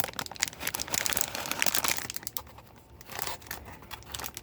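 Packaging crinkling and crackling as it is handled and pulled at, a dense run of quick clicks and rustles that is busiest in the first couple of seconds, then thins out with a short flurry again near the end.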